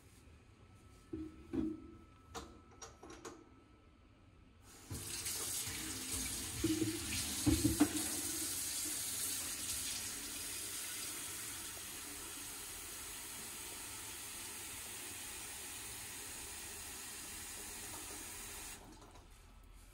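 A few light clicks and knocks as a stainless steel electric kettle is handled, then a kitchen faucet runs water steadily into the kettle for about fourteen seconds before being turned off near the end.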